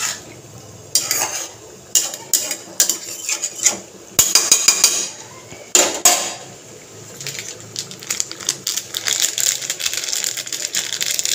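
A metal spoon scrapes and clinks against the sides of a kadai as cauliflower in curd gravy is stirred. In the second half a dense crackling from the gravy sizzling and bubbling on the heat grows steadily louder.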